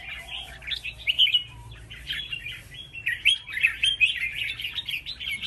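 Caged red-whiskered bulbuls singing competitively in a song duel: quick, bright chirping and warbling phrases, one after another, with only brief pauses.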